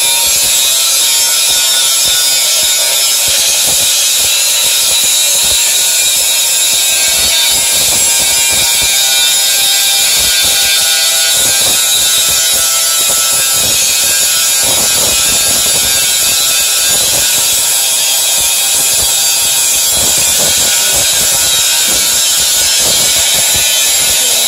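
Makita GA4040C 100 mm variable-speed angle grinder cutting through a steel section with an abrasive disc: a loud, steady, high, hissing grind of the disc biting into the metal.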